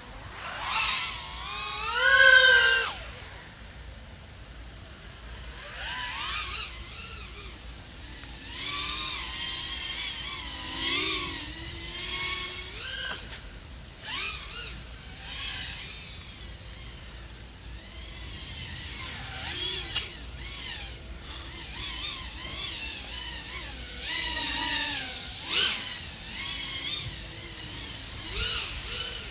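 Brushless motors and 3.5-inch propellers of an iFlight AOS 3.5 V5 FPV quadcopter whining, the pitch sweeping up and down as the throttle is punched and eased, heard from the drone's own onboard microphone. The loudest surges come about two seconds in and again around twenty-five seconds.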